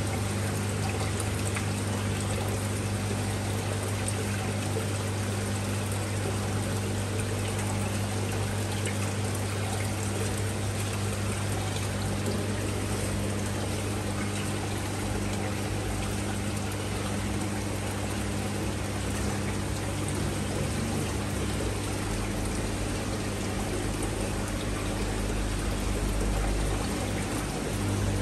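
Aquarium water pouring and trickling steadily, over a constant low hum.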